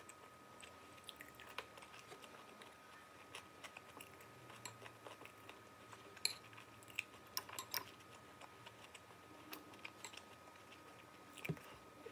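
Close-up eating sounds: soft chewing and crunching of food, with scattered light clicks of chopsticks against a ceramic plate, loudest between about six and eight seconds in.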